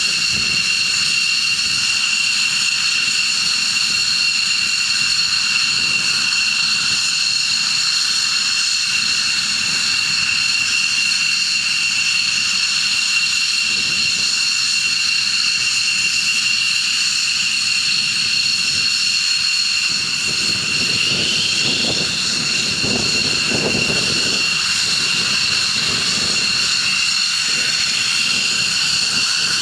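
Jet engine running with a steady, loud high-pitched whine over a rushing roar.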